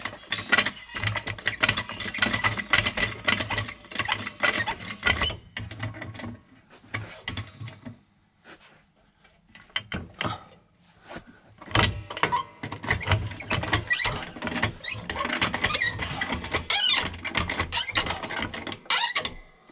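Hand tools working on the rear suspension bolts of a BMW F20: rapid metallic clicking and rattling, in two long spells with a pause of a few seconds near the middle.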